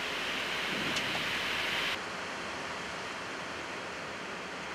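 Steady airy hiss of a Boeing 777 flight deck's background noise. About two seconds in it abruptly drops to a quieter, duller hiss.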